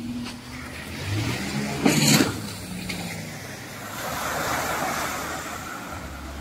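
Watercraft engine running offshore with a low, slightly varying drone, and a brief loud rush of noise about two seconds in.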